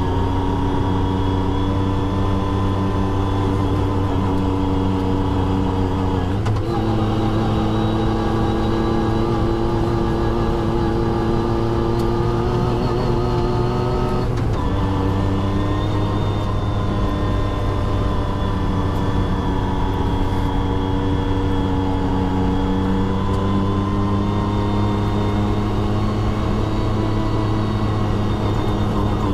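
Side-by-side UTV engine running at a steady pace, heard from on board. Its pitch steps up about six seconds in, drops back at about fourteen seconds, then slowly climbs.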